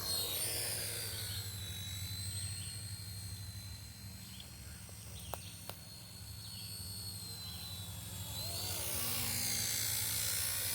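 Radio-controlled model helicopter flying, its motor and rotor giving a high whine that glides in pitch and grows louder as it passes close at the start and again near the end. Two small clicks a little past halfway.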